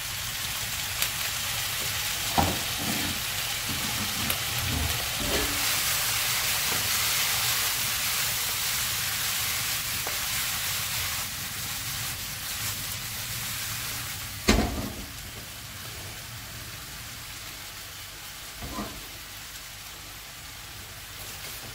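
Potatoes, sausage and vegetables sizzling in a frying pan, hardest in the first half while soy sauce is poured in and the pan is tossed. A sharp knock comes about two-thirds through as the pan is set back down on the gas burner grate, with a few lighter clicks of the pan here and there. After the knock the sizzle settles to a quieter, steady level.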